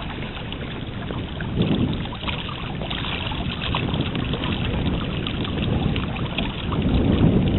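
Wind buffeting the microphone, a steady rumbling noise that swells louder about seven seconds in.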